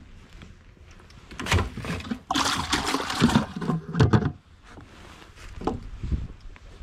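A bluegill dropped into a bucket of water, splashing and thrashing for about a second, then a few knocks as the bucket is handled.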